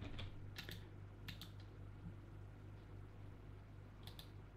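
Faint, scattered clicks of a computer keyboard and mouse, about six in small pairs and clusters, over a low steady hum.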